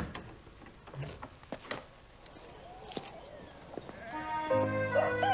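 A farm animal bleating once, with a few scattered knocks, in a quiet farmyard. Music starts about four seconds in with long held notes.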